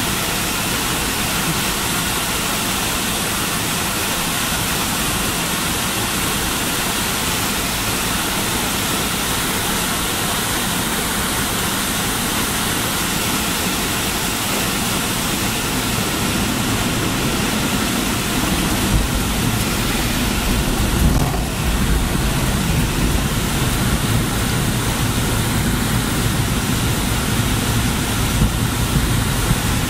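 Airliner cabin noise aboard a McDonnell Douglas MD-80 on final approach: a steady rush of airflow and engine noise. About two-thirds of the way through the aircraft touches down, and a low, bumpy rumble of the landing gear rolling on the runway joins in.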